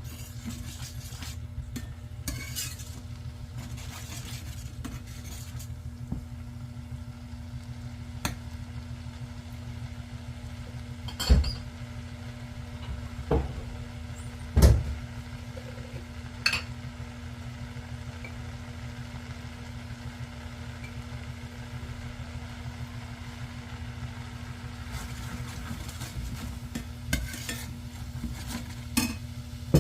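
Pork trotters being stir-fried in a pan: faint sizzling over a steady low hum, with a handful of scattered clinks and knocks of a utensil against the pan, the loudest about a third and halfway through.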